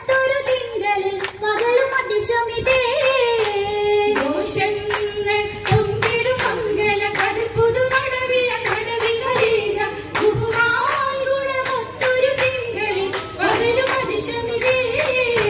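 A woman's voice singing an Oppana (Mappila) song through a PA, with the dancers' handclaps keeping a steady beat of about three claps a second.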